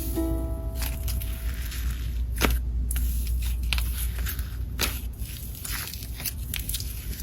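Slime being squished and pressed by hand: an irregular run of clicks, crackles and squishes, with a few sharper pops about two and a half and five seconds in.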